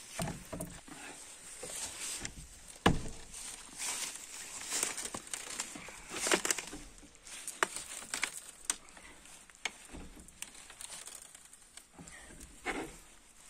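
Scattered knocks and clicks of a metal pry bar working at a padlocked iron hasp on an old wooden door, with one sharp knock about three seconds in. Jacket fabric rustles close by.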